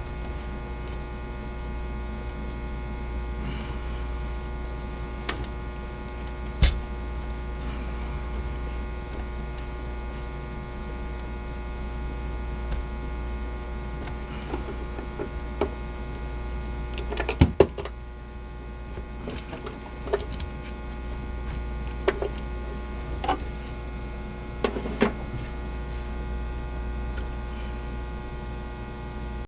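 Steady machinery hum, with a faint short high beep repeating about every two seconds. Scattered clicks and knocks of tools being handled, the loudest a clatter about two-thirds of the way through.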